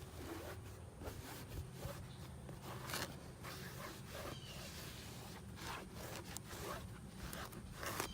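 Faint, irregular rustling and scraping with scattered small clicks over a low background hum.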